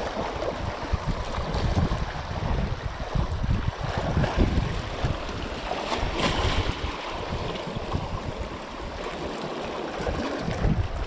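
Small waves washing and splashing over rock ledges at the water's edge, with a brighter splash about six seconds in. Wind buffets the microphone throughout, a gusty low rumble.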